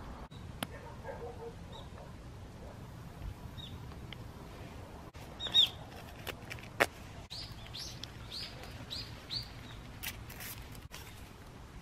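A bird calling: a single chirp, then a run of five short descending chirps at about two a second, among scattered sharp clicks and snaps.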